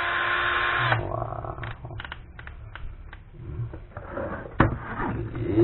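Bosch GSB 1080-2-Li 10.8 V cordless drill driver run briefly on its trigger: the motor whirs up to speed, runs for about a second and winds down. Light plastic clicks and knocks of handling follow.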